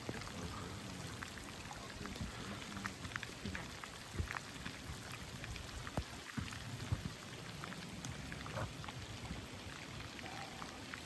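Light rain falling in a shower, a steady hiss with many scattered drop ticks.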